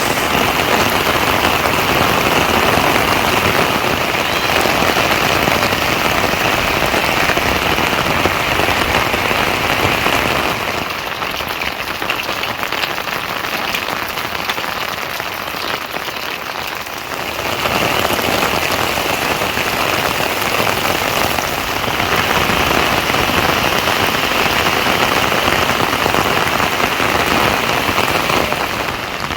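Steady rain falling and pattering on surfaces, quieter for several seconds around the middle before picking back up.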